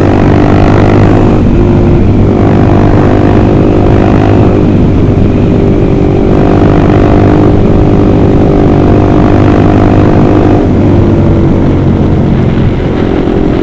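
Honda CBR150R's single-cylinder engine running loud through an Austin Racing aftermarket racing exhaust while riding, holding a nearly steady pitch with small changes about a second and a half in and again near the end.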